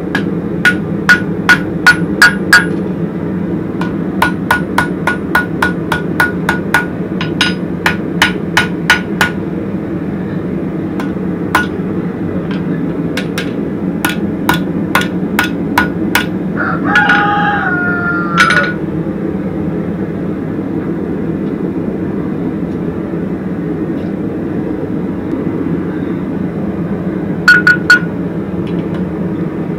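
Hand hammer striking a red-hot horseshoe bar on a Hay Budden anvil in quick runs of about three blows a second, each with a bright ring, pausing between runs and thinning out to a few blows in the second half. A rooster crows once a little past halfway, over a steady low hum.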